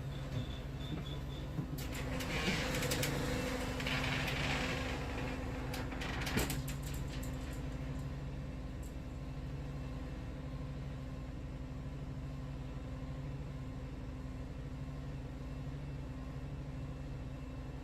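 Wood-Mizer sawmill's engine running steadily with an even hum. About two seconds in, a few seconds of rustling and clicking handling noise sit over it, ending with a sharp knock.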